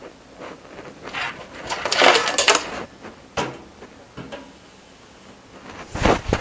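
Clinks, scrapes and rattles of metal computer hardware being picked up and handled, busiest about two seconds in, with a louder knock near the end.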